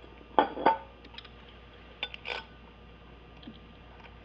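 Two pairs of sharp metal clinks, one near the start and one about two seconds in, with a few lighter ticks between them. They come from steel flywheel bolts and hand tools knocking against a single-mass flywheel as it is lined up and its bolts are started into the crankshaft.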